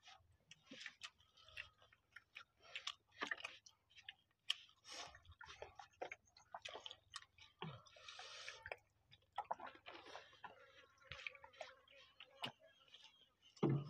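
Close-up eating sounds of people eating rice by hand: chewing, lip smacks and irregular soft clicks. There is a short hiss of noise about eight seconds in.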